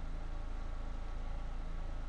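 Steady low hum with an even hiss over it, unchanging, with no other sound.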